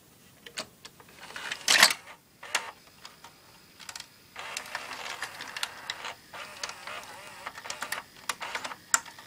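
Opened VCR's tape-loading mechanism working through its cycle: a motor whirring and gears and levers clicking and clacking, with a loud clack about two seconds in and a stretch of steady whirring midway.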